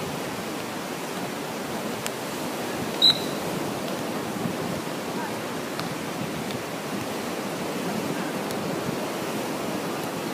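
Steady wash of surf and wind noise on an open beach. About three seconds in there is a single short, high-pitched beep, and a few faint knocks.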